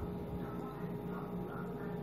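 Faint chewing and mouth sounds from someone eating, over a steady low hum.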